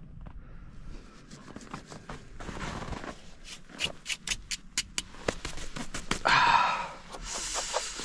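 Crunching and rustling close to the microphone, from someone moving around in snow in heavy winter clothing, with a run of sharp clicks in the middle and a louder stretch of rustling near the end.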